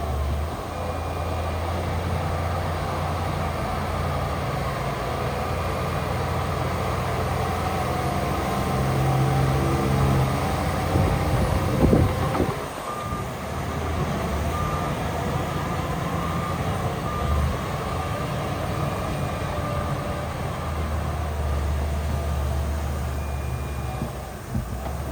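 Heavy diesel earthmoving machinery, dump trucks and a bulldozer, running under load, with a reversing alarm beeping repeatedly. A louder clatter comes about twelve seconds in.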